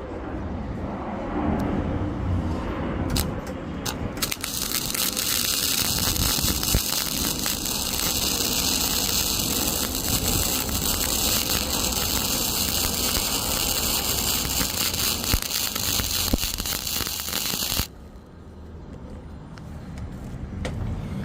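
Welding arc crackling steadily as a downhill stringer bead is run on thin-gauge steel, building up a flare-bevel groove to close the gap. It starts about four seconds in after a couple of sharp clicks and cuts off suddenly near the end.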